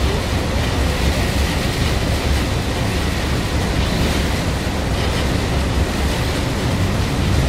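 Steady rush of wind and water aboard a boat crossing a harbor in a storm, with a deep low rumble underneath.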